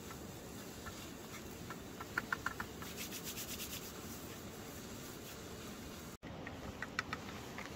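Cooking in a pan: a spatula scraping and clicking against the pan as onions fry, with a quick run of clicks about two seconds in and a few more near the end, over a steady noise.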